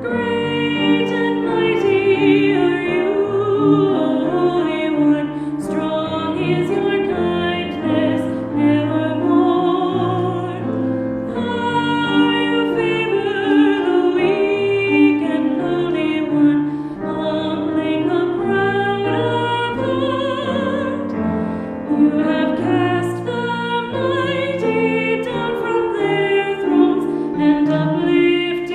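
Voices singing a hymn with piano accompaniment, the sung notes held with vibrato.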